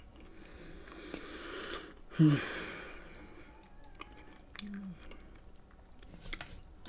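Close-miked chewing and mouth sounds of a person eating, with small wet clicks. A short vocal sound from the eater about two seconds in is the loudest moment, and a softer hum comes near five seconds.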